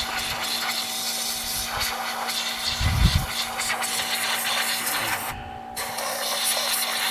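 Compressed air hissing from a blow gun as it clears packed mouse-nest debris out of a Briggs & Stratton flathead engine's cooling fins. The hiss cuts off briefly a little past halfway, with a low knock about three seconds in and a steady hum underneath.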